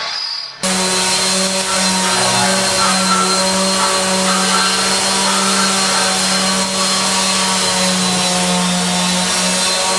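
Electric power tool motor running steadily at constant speed with a steady hum and hiss, starting abruptly about half a second in.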